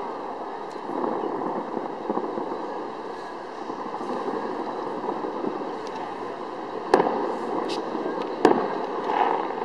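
Fireworks display: a steady din of many shells bursting, with two sharp bangs about a second and a half apart near the end.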